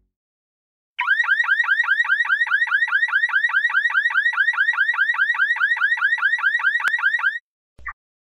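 Electronic alarm sound effect: a short rising chirp repeated rapidly, about six times a second, for about six seconds, then cutting off suddenly, with one brief blip just after.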